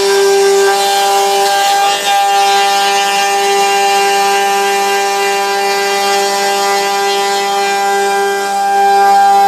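CNC router's Chinese-made spindle motor running at high speed with a steady, siren-like whine over a rushing noise, with a brief dip about two seconds in.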